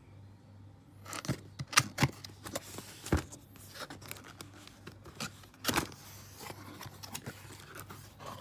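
Handling noise: irregular sharp clicks and knocks with some rustling, the loudest about a second or two in and again past the middle.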